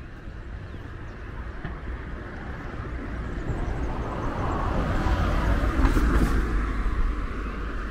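A vehicle passing by: a rushing noise with a low rumble that swells over a few seconds, is loudest about six seconds in, then fades.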